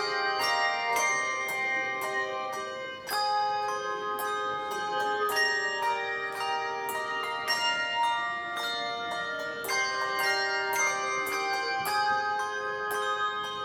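Handbell choir playing: many handbells struck in quick succession, several ringing together in chords.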